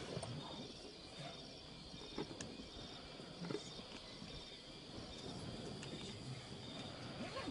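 Insects chirping in steady, evenly pulsed trills throughout, with scattered soft crunches and smacks from lions chewing and tearing at a warthog carcass, a few of them louder about one, two and three and a half seconds in.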